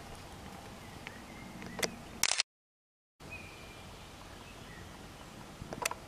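A bumblebee buzzing low and steady for about two seconds over a quiet outdoor background, followed by a few sharp handling clicks. The sound then cuts to dead silence for under a second, and the background resumes with a brief high whistle.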